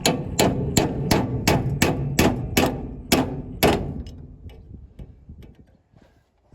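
A hammer striking a steel punch set in the hole of a combine bearing's locking collar, driving the collar round to loosen it from the shaft: about eleven sharp metal-on-metal blows, roughly three a second, each ringing briefly, stopping about four seconds in.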